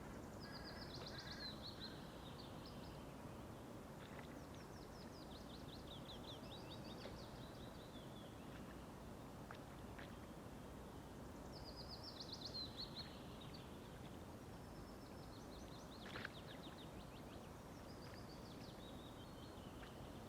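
A songbird singing outdoors: about five repeated phrases of quick high notes, each falling in pitch over about two seconds. Low steady background noise runs beneath, and a single sharp click comes about three quarters of the way through.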